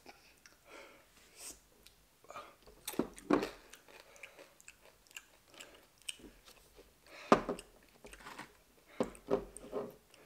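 People chewing and crunching tortilla chips, an irregular run of crisp crunches with a few louder bites.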